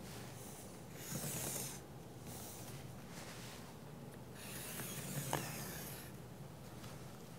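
Sharpie marker drawing lines on fabric along a quilting ruler, in several strokes of a second or two each, with one sharp tick a little past five seconds in.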